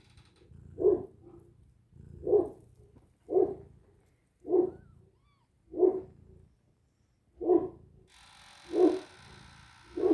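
An animal's short call repeated steadily, about eight calls each a second or so apart.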